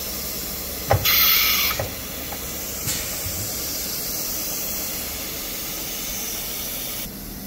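CNC router's automatic-tool-change spindle releasing and taking an 8mm tool holder: a click, then a short blast of compressed air hissing from the spindle nose for under a second, and a clack as the holder seats. Another click a couple of seconds later, over steady background hiss.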